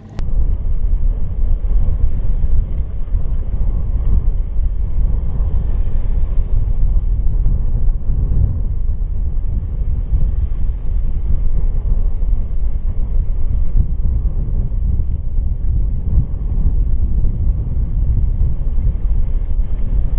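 Small motorboat under way in choppy sea: a loud, steady low rumble of engine and wind buffeting the microphone.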